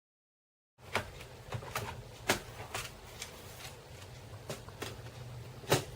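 Irregular light clicks and taps from hands and a small screwdriver working on a laptop's plastic case, over a low steady hum. The sound cuts in suddenly about a second in after dead silence.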